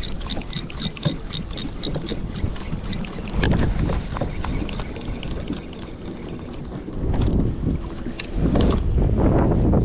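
Wind buffeting the microphone and water rushing around a kayak, swelling several times. In the first few seconds a quick, even ticking of about five clicks a second runs over it.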